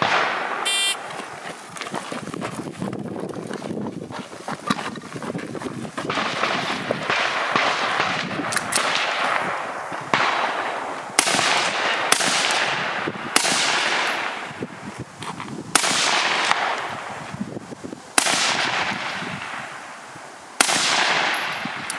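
A shot timer beeps once about a second in. From about eight seconds on comes a string of about eight rifle shots, one to two and a half seconds apart, each followed by an echo that dies away.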